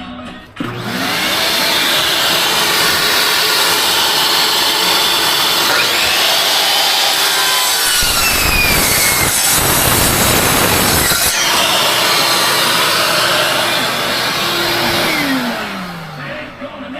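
Electric power saw cutting scrap plywood. The motor spins up under a second in, runs loud through the cut with a heavier stretch in the middle, then winds down with falling pitch near the end.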